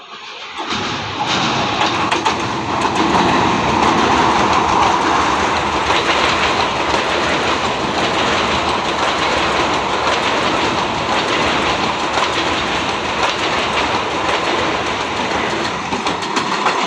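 Indian Railways EMU local train passing at speed close by: a steady, loud rush of wheels on rail with a fast clickety-clack of wheels over the rail joints. The sound cuts in abruptly about half a second in.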